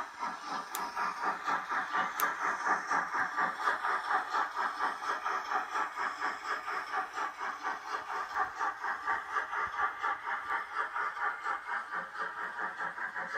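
H0-scale model steam locomotive's sound decoder playing steady, rhythmic steam chuffing, about five chuffs a second, as the locomotive runs with a train of coaches.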